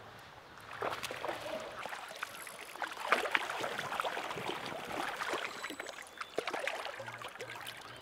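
Shallow creek water splashing and sloshing in many short irregular bursts, starting about a second in: a wading angler's feet stepping through the water and a hooked smallmouth bass splashing at the surface as it is brought in.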